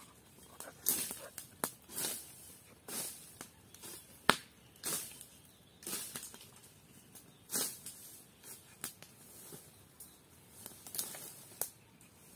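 Irregular crackling and rustling, with short noisy swishes and pops about once or twice a second and one sharp, loud snap about four seconds in: a campfire burning close by and brush being handled.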